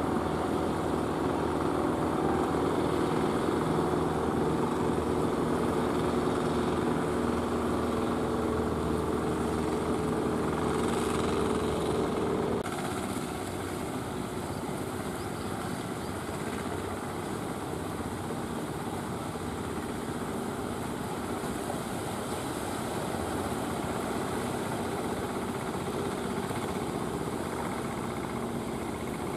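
Motor of a small outrigger fishing boat running steadily as it passes close. Just under halfway through, the sound cuts abruptly to a quieter, rougher engine drone from a larger wooden fishing boat heading in over the sea.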